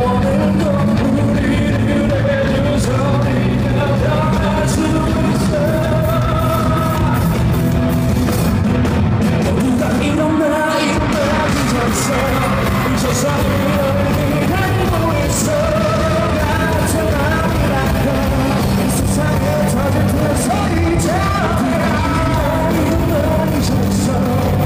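Live pop-rock band playing at full volume, a male singer over electric guitar, bass and drums, with fans yelling along from the crowd.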